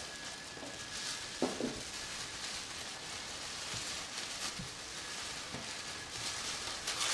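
Tissue paper crinkling and rustling as items are unwrapped by hand, with faint scattered ticks.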